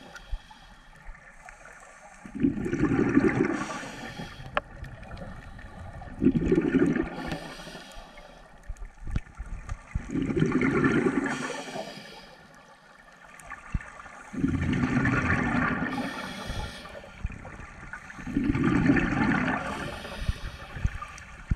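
A scuba diver breathing through a regulator underwater: five bursts of exhaled bubbles gurgling past, one about every four seconds, with quieter gaps between.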